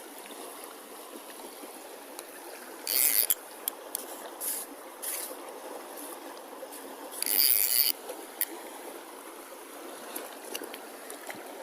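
Steady trickling, flowing water, with two brief hissing splashes.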